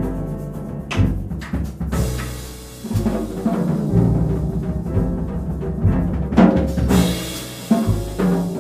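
Live jazz trio of upright double bass, piano and drum kit playing: deep bass notes under piano, with drum and cymbal strokes.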